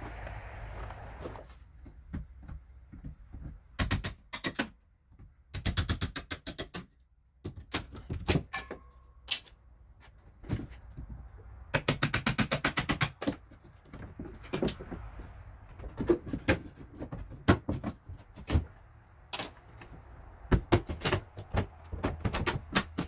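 Knocks and clicks from work on the building's wooden front, with three bursts of rapid tapping, about a dozen taps a second, and scattered single knocks between them.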